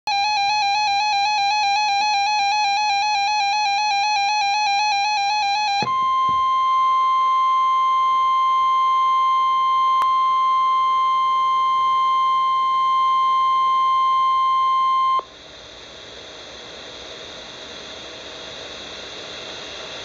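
NOAA weather radio receiver sounding an alert: about six seconds of fast, evenly repeating beeps, then the steady 1050 Hz Warning Alarm Tone held for about nine seconds. The tone cuts off suddenly to a low hiss that heralds a severe thunderstorm warning.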